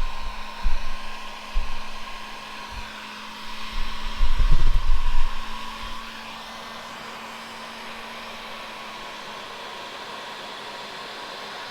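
Heat gun running steadily, a blowing hiss with a faint steady hum, heating the bumper to soften it so it sets in its new shape. A few low thumps come in the first half.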